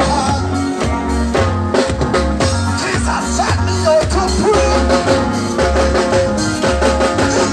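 Jamaican nine-night band music playing loud, with a heavy repeating bass line, drums and sustained keyboard-like notes over a steady beat.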